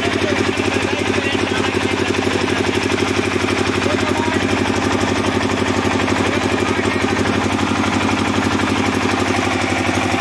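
Small stationary diesel engine running steadily with an even rhythm of firing strokes, belt-driving a generator.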